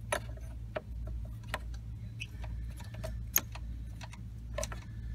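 A string of light, irregular clicks and taps, two or three a second, as the plastic tilt steering wheel lever and column trim of a Dodge Ram are fitted back on by hand. A steady low hum runs underneath.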